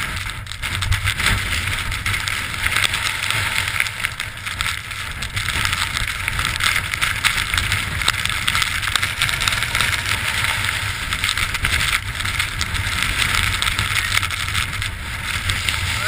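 Blizzard wind blowing over a helmet-mounted camera's microphone: a loud, continuous rush with a low rumble that rises and falls in gusts.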